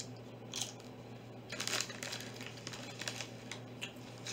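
Plastic packaging crinkling as it is handled close to the microphone, in a few short rustling bursts, the longest around the middle, over a steady low hum.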